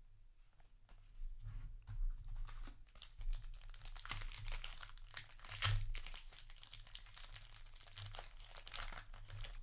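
Foil wrapper of a Magic: The Gathering play booster pack crinkling and tearing as it is worked open by hand. The dense, irregular crackle starts about a second in and peaks about halfway through.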